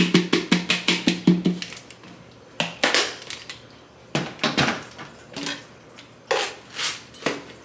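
Unstoppables scent beads poured into a container: a quick rapid rattle of small pellets for the first second and a half, then several separate knocks and clatters.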